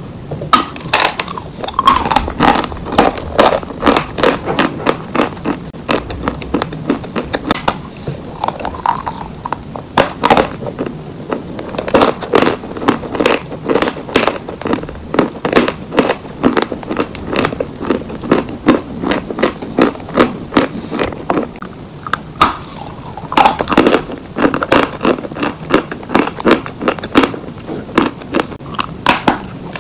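A block of white chalk being bitten and chewed close to the microphone: a quick, continuous run of sharp crunches and crackles, several a second.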